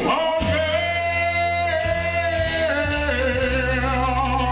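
Male karaoke singer holding one long sung note with vibrato over a backing track, the note stepping down in pitch twice. A steady low backing chord sustains under it from about three seconds in.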